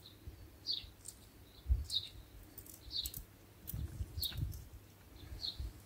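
A small bird chirping, a short falling call repeated about once a second, with faint low rumbles underneath.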